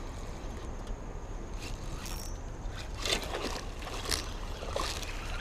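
Hooked bass splashing and thrashing at the water's surface while being reeled in, in several short splashes over the last few seconds.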